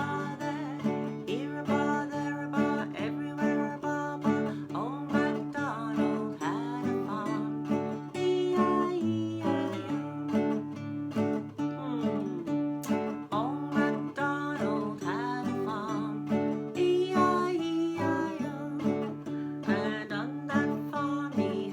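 Acoustic guitar music: chords strummed in a steady rhythm with a melody line over them.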